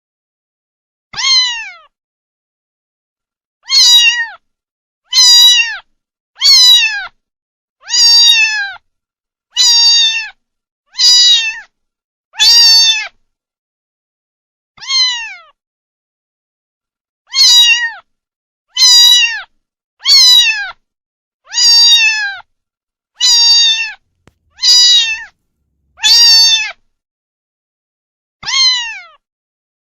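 Domestic cat meowing repeatedly, about seventeen meows with short pauses between them, each one falling in pitch.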